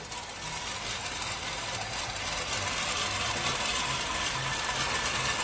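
LawnMaster LMRM1801 push reel mower, its five-blade reel spinning against the cutting bar as it is pushed through grass: a steady, noisy whirr with a faint rhythmic low pulse.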